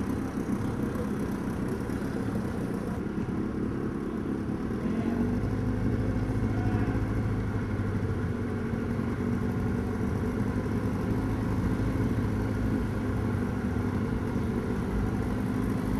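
An engine running steadily, a low hum that grows a little louder about five seconds in.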